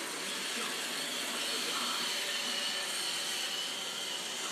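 Roomba robot vacuum running: a steady whirr of its motors and brushes, with a faint high whine held throughout.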